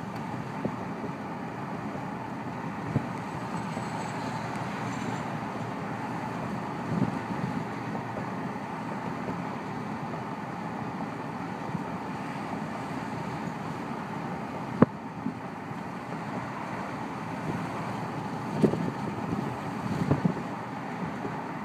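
Car driving slowly: steady road and engine noise with some wind on the microphone, broken by a few brief knocks and bumps, the sharpest about fifteen seconds in.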